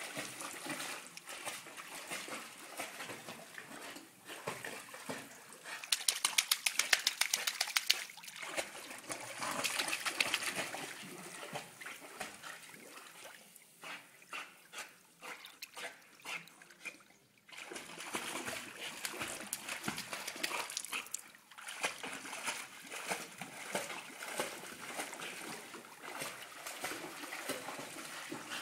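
Pool water splashing and sloshing as a pit bull paddles through it, with a run of quick, regular splashes about six to eight seconds in that is the loudest part.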